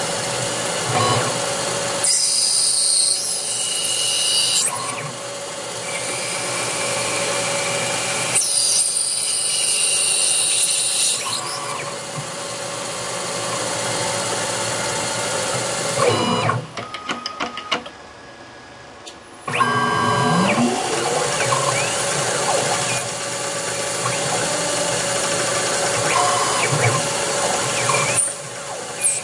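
Small CNC lathe at work: the spindle runs with a steady whine while a drill cuts into metal bar stock, loudest in two stretches in the first dozen seconds. About 16 s in, the spindle winds down with a falling whine. After a short, quieter pause with a few ticks, it spins back up with a rising whine and cutting resumes.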